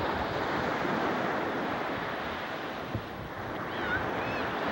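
Gentle surf washing onto the beach, a steady rushing, with wind buffeting the microphone. A few faint, short high chirps come near the end.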